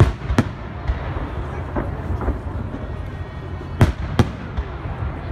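Aerial firework shells bursting: sharp bangs, two close together at the start and two more just under four seconds in, with fainter pops between them.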